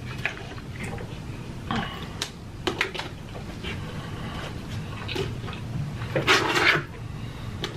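Small sounds of handling food at a table: scattered light clicks and taps from dipping food into plastic sauce cups and picking at a cardboard pizza box. About six seconds in there is a louder rush of noise lasting about half a second.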